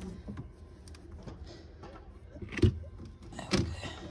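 Knocks, clicks and scraping as a camper van's wooden entrance-step lid is worked loose and lifted off the battery compartment beneath, with two louder thumps about two and a half and three and a half seconds in.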